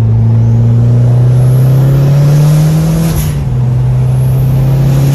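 Second-generation Mitsubishi Eclipse engine pulling under acceleration, heard from inside the cabin. Its pitch climbs, drops suddenly at an upshift about three seconds in, then climbs again in the next gear.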